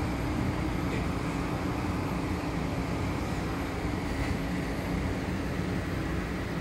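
Steady hum and rushing noise of aquarium pumps and circulating water in a coral quarantine vat room, with the flow to the vat not fully shut off.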